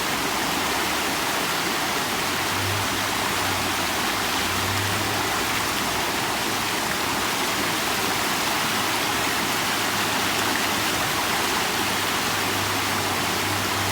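Storm-swollen creek in flood, its high water rushing steadily.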